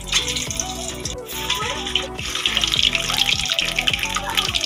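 Whole boiled eggs sizzling and crackling in hot oil in a kadai, the frying growing louder a little past halfway. Background music plays throughout.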